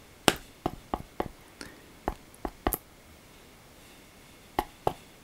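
Painting knife dabbing oil paint onto a stretched canvas: a string of sharp taps, about eight in the first three seconds, a pause, then two more near the end.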